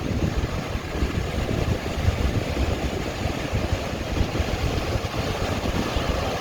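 Wind buffeting the microphone in a steady, rough low rumble, with ocean surf beneath it.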